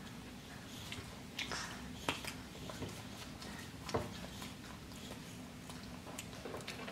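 Children chewing chicken nuggets with soft mouth sounds, and a few sharp hand claps, the loudest about four seconds in.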